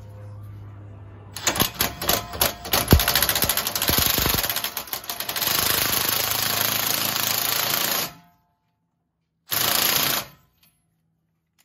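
Makita cordless impact wrench hammering a lug nut down against stacked washers on a new wheel stud, drawing the stud's back end into the wheel hub to seat it. It starts about a second in with several short bursts, then runs steadily for a couple of seconds and stops, with one more short burst near the end.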